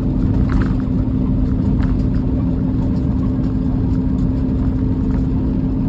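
Steady drone of a Peterbilt 389 semi truck cruising on the highway, heard from inside the cab, with one constant low hum running through it.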